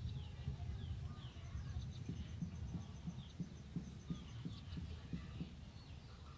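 Low, uneven thumping rumble with faint short falling bird chirps above it, and a rapid high ticking trill of about six notes a second from roughly one to four seconds in.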